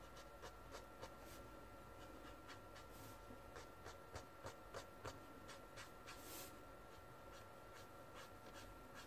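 Faint brush-tip marker working on brown kraft paper: irregular soft ticks and a few short brushing strokes as shading is laid in with a side-to-side motion.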